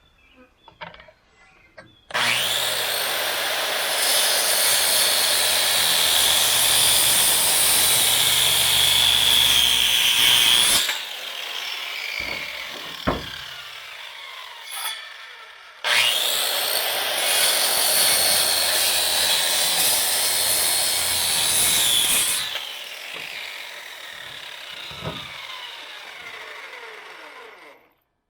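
Electric power saw cutting through wooden boards in two long cuts, each followed by the blade spinning down with a falling whine.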